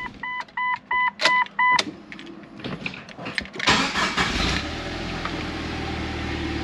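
Jeep Cherokee XJ's dashboard warning chime beeps rapidly, about four beeps a second, for nearly two seconds. A few clicks follow. About halfway through, the 2.5-litre four-cylinder engine cranks briefly and catches at once, then settles into a steady idle; it starts without hesitating on its newly fitted Accel ignition coil.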